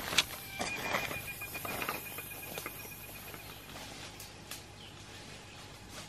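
Footsteps in boots crunching and rustling through dry leaf litter, several steps in the first two seconds, loudest near the start, then fading into quieter forest background. A thin steady high tone sounds behind the steps until about three seconds in.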